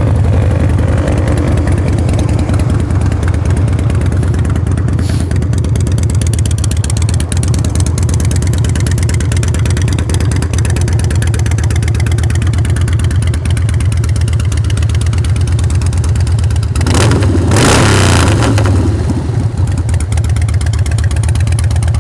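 2006 Harley-Davidson Fat Boy's Twin Cam 88B V-twin idling steadily just after start-up, with one brief rev about seventeen seconds in. The engine runs nice and tight, with no odd noise.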